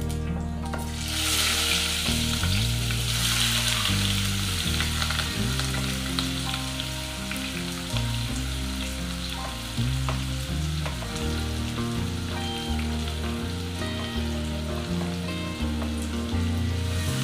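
Chopped vegetables going into hot oil in a kadhai, sizzling loudly about a second in, then frying steadily. A spatula stirs and scrapes, with small clicks against the pan.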